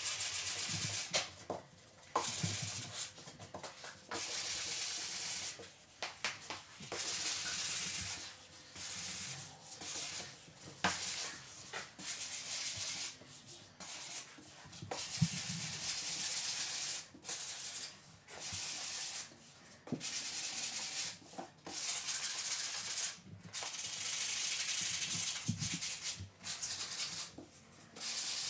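Sanding block rubbed by hand along wooden door casing, smoothing dried wood filler before paint: bouts of scratchy hiss lasting a second or two each, with short pauses between strokes.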